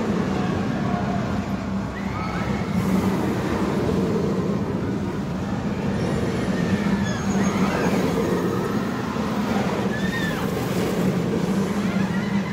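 The Smiler roller coaster's machinery and running train making a steady rumble and hum.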